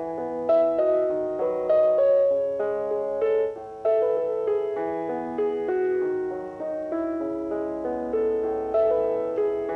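Background music: a slow piano melody of single ringing notes over sustained lower tones.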